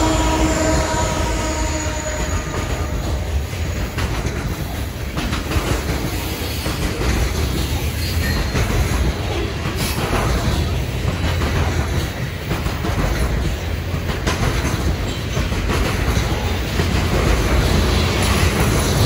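Freight train of covered hopper cars rolling past: steady rumble of steel wheels on rail, with clicks and clatter as the wheels cross rail joints. A few steady tones from the just-passed mid-train diesel locomotive fade out in the first couple of seconds.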